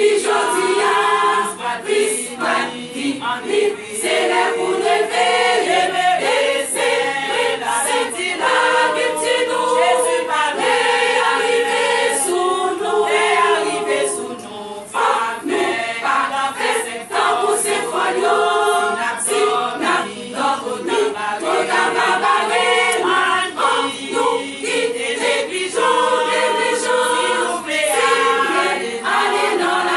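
Women's choir singing a gospel hymn.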